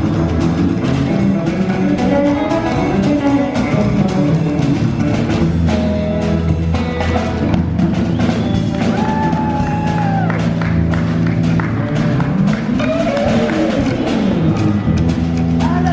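Live band playing an instrumental passage: electric guitar with bending, sliding notes over bass and a steady drum beat.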